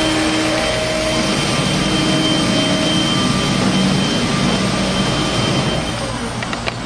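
Thermwood five-axis CNC router running, a steady rushing machine noise with a faint steady whine from the spindle. The whine fades and the noise eases about six seconds in, followed by a few light clicks.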